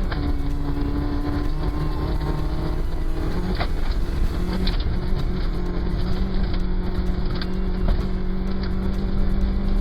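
Rally car engine running, its held note dropping lower about halfway through and then slowly climbing.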